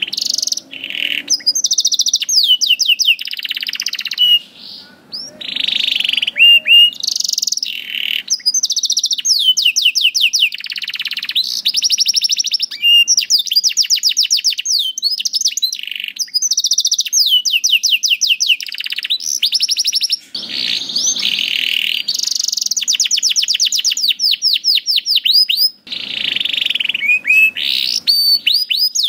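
Domestic canary singing a long, nearly continuous song of fast trills and rolls of rapidly repeated high notes, with only brief pauses between phrases.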